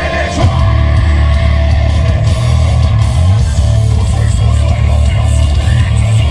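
Loud music with guitar played through a big festival sound system, dominated by heavy, booming bass.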